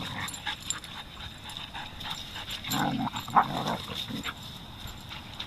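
A dog making a short run of vocal sounds about three seconds in, with scattered small clicks and scuffles around it.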